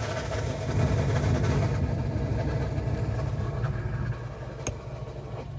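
2011 Ford Mustang GT's 5.0 V8 idling with a rough, rapid rattling chatter from a worn clutch pilot bearing.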